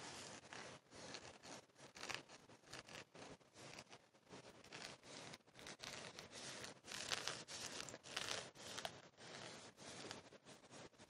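Close-up rustling and scratching of a white knitted fabric object handled and rubbed against the microphone, a dense irregular crackle that is loudest a little past the middle.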